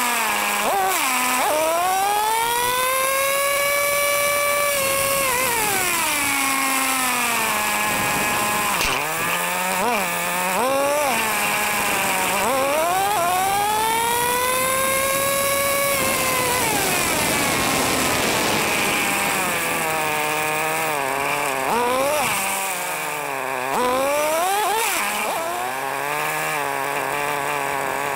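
Traxxas T-Maxx 3.3's two-stroke nitro engine heard close up from on board the truck, revving through two long accelerating runs where the pitch climbs, holds high for a couple of seconds and falls away. Between and after these come quick throttle blips and stretches settling back toward idle.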